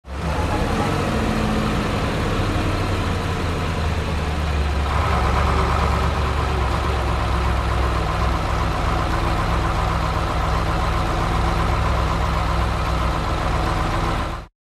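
A vehicle engine running steadily at a low, even hum, with a higher tone joining about five seconds in.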